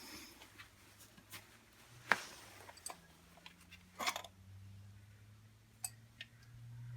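A few short, sharp clicks and knocks of hard objects, the loudest about two seconds in and a small cluster about four seconds in, over a faint low hum.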